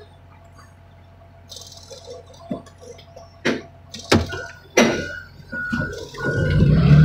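Heavy machinery working scrap cars. Several loud metal knocks and clanks come first. From a little past the middle, a short beep repeats about twice a second, and a machine's engine grows loud near the end.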